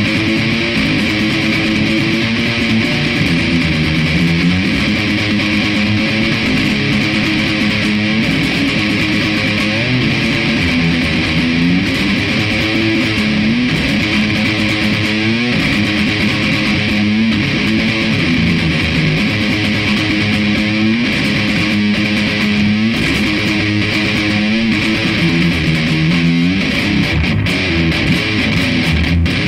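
Metal guitar jam: electric guitar playing strummed riffs, loud and continuous.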